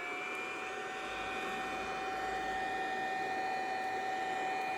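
Venom mini ductor induction heater running, its coil heating a rusted, seized subframe bolt: a steady high whine made of several pitches over an even hiss, growing slowly louder.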